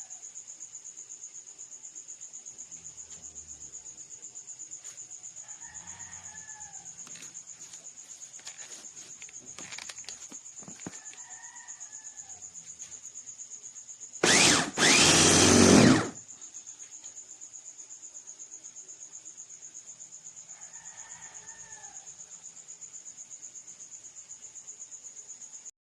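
Steady high-pitched insect trill with a rapid even pulse, and a rooster crowing faintly three times. About fourteen seconds in, a loud, noisy burst lasting under two seconds, broken once near its start.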